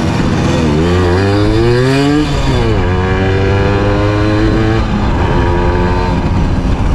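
Simson S51 moped's single-cylinder two-stroke engine pulling away under acceleration. The revs climb, fall sharply at a gear change about two seconds in, climb again through the next gear, and shift once more near the five-second mark.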